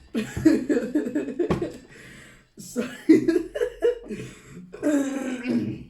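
People laughing and chuckling, in several short stretches.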